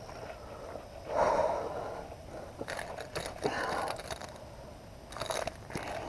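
Rustling, scraping and crackling in grass and dry leaves as a freshly caught pike is grabbed and held down on the ground, in irregular bursts, the loudest about a second in and more around the middle and near the end.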